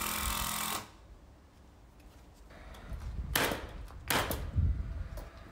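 Paslode framing nailer firing a few sharp shots, about three and a half to four and a half seconds in, as two lengths of pine framing timber are nailed together. Before that, a cordless drill runs for under a second and cuts off.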